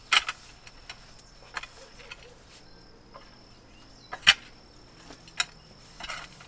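Metal tines of a pitchfork clicking and scraping as it is worked through compost and wood-chip mulch, in scattered sharp strikes, the loudest about four seconds in.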